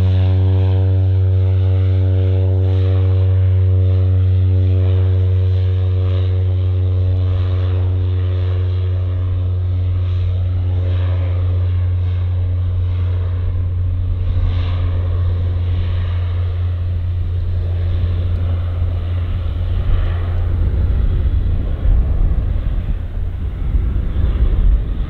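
Cessna 208 Caravan's single turboprop engine and propeller at take-off power during the take-off roll and lift-off: a steady low propeller drone with a stack of overtones that fades gradually as the aircraft moves away. A gusty low rumble rises near the end.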